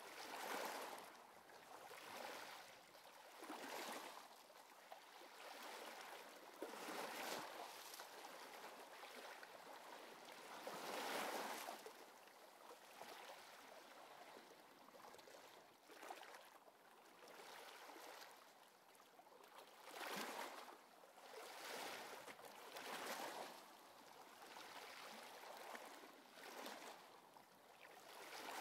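Quiet wash of ocean waves, swelling and ebbing in soft hissing surges every few seconds.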